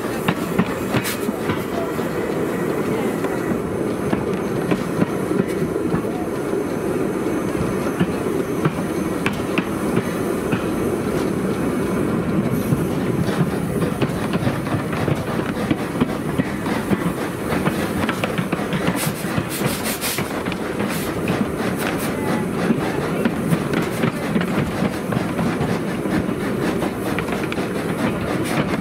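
The 1979 replica of Stephenson's Rocket steam locomotive on the move, heard from its footplate: a steady rumble with the wheels clicking over the rail joints.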